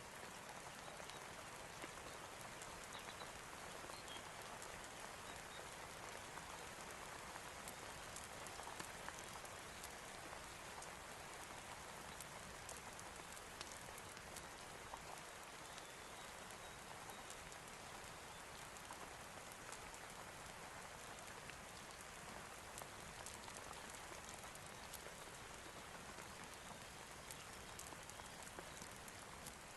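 Steady rain falling, an even hiss dotted with many small scattered ticks of drops.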